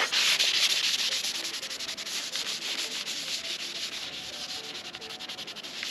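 A paper towel rubbed briskly over the hot metal soleplate of a Toko ski waxing iron to clean it before waxing: a continuous dry rubbing that slowly eases off.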